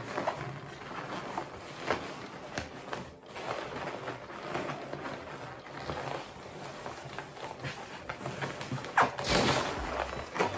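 Latex balloons being pressed and kneaded by hand against a tabletop: irregular rubbery squeaks and rubbing, with a few sharp creaks and a louder stretch of rubbing about nine seconds in.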